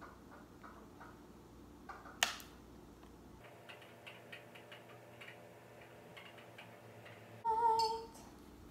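Faint, quick light ticking, about four or five ticks a second, with one sharper click about two seconds in and a short pitched tone near the end.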